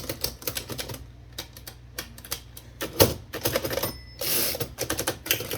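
Smith Premier No. 10 typewriter being typed on: a steady run of key and typebar clacks, with one louder clack about three seconds in and a short rasping noise just after four seconds.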